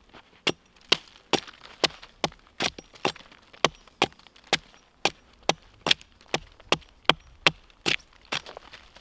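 Steady chopping of wood with a blade: about twenty sharp, even strikes, a little over two a second.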